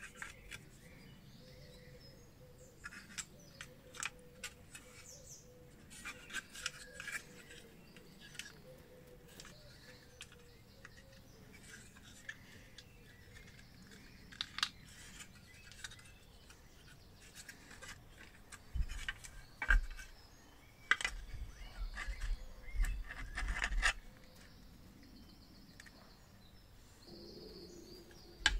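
Light clicks, scrapes and taps of a rusty sheet-metal lamp housing being handled and taken apart by hand, with a cardboard liner and metal reflector lifted out. A louder run of knocks and rattles comes about twenty seconds in, and a screwdriver scrapes at the metal near the end.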